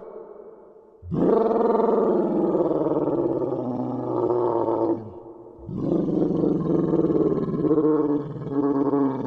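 Dinosaur roar sound effects: a long pitched roar starting about a second in and lasting about four seconds, then after a short pause a second roar that carries on to the end.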